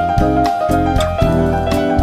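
Background music led by piano, with steady bass notes and a regular beat.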